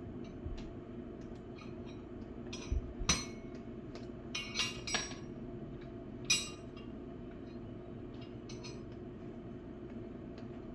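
Metal hand tools clinking as a wrench and screwdrivers are handled and fitted together: a few scattered light clinks and taps, with a small cluster in the middle, over a steady low hum.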